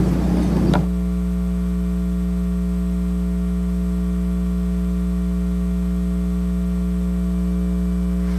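Steady electrical mains hum and buzz from the sound system, settling in after a short rush of noise that ends in a click about a second in.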